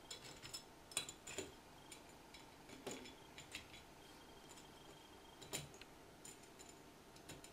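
Faint, scattered clicks and clinks of small metal spacers and shims being handled and set onto the bolts of a CNC Z-carriage plate.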